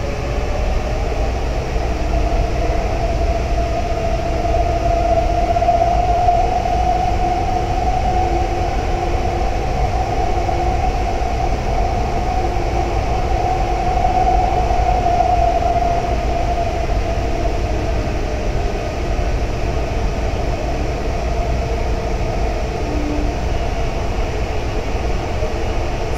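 Taichung MRT Green Line train running between stations, heard from inside the car: a steady rumble of wheels and running noise. A single motor whine rises slightly over the first few seconds, holds steady, then fades about two-thirds of the way through.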